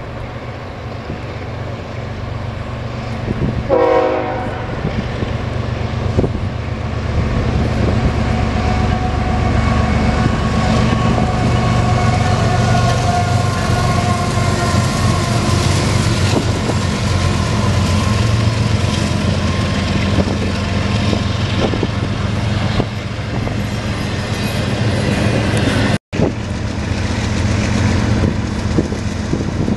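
A diesel freight train's horn sounds in one short blast about four seconds in, then CSX diesel locomotives and double-stack intermodal cars roll past with a steady rumble and wheel clatter. Near the end the sound breaks off and another diesel locomotive is heard approaching.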